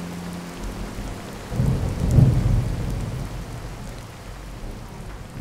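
Steady rain with a roll of thunder that swells about a second and a half in and rumbles away over the next few seconds.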